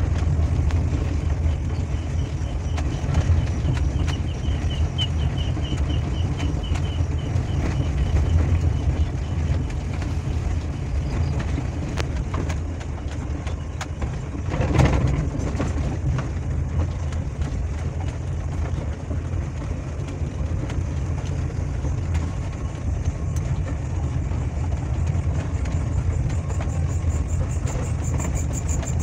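Engine and road rumble of a 1990 Daihatsu Zebra under way, heard from inside the cabin, running steadily. A single louder thump comes about halfway through.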